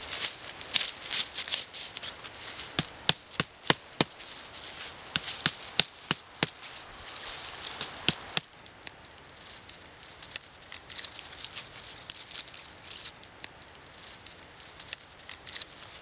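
Fresh stinging nettle stalks being stripped and worked by hand: rustling of leaves and stems, with a run of sharp clicks and snaps in the first half, then softer rustling.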